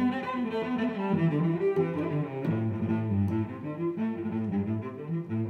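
Background music: a fiddle playing an Irish jig tune in quick notes.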